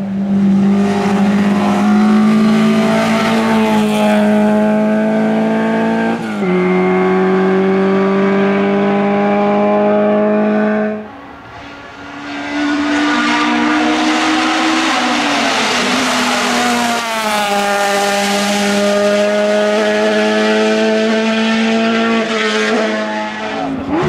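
Hillclimb race car engines at full throttle, one car after another: a high, steady engine note that drops in pitch at an upshift about six seconds in. It breaks off near eleven seconds, and a second car, a red Alfa Romeo 156, comes in with its engine note rising, then holding high and steady.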